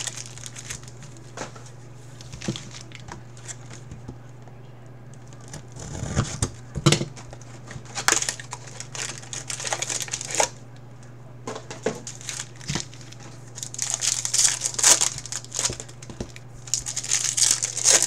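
Foil wrappers of baseball card packs crinkling and rustling as they are handled and pulled from an opened hobby box, in irregular bursts, over a low steady hum.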